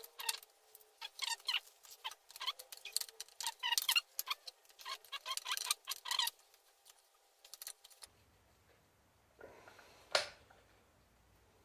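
Metal gearbox parts of a Suzuki Cappuccino manual transmission clicking and clinking as they are handled and fitted together, a rapid irregular run of light metallic taps for about eight seconds, then one louder clunk near the end.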